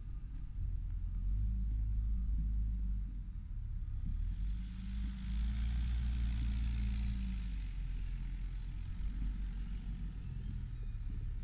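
Mercedes-Benz MBE-4000 inline-six diesel of a Western Star 4900SA crane truck idling, a low steady rumble.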